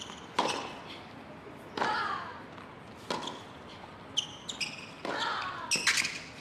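A tennis rally on a hard court: sharp pops of the ball off the strings and off the court, coming roughly every second and a half. Near the end come a few short high squeaks, typical of tennis shoes on the court.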